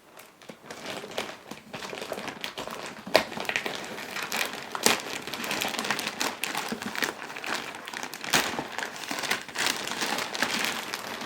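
Shipping packaging being handled and pulled off a shoebox, crinkling and rustling continuously, with a few sharper snaps about three, five and eight and a half seconds in.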